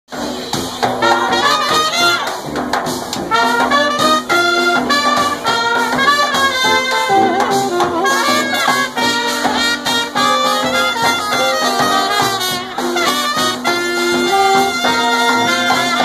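Brass band playing a tune: a sousaphone bass line under a tenor saxophone and two trumpets, with a bass drum keeping the beat.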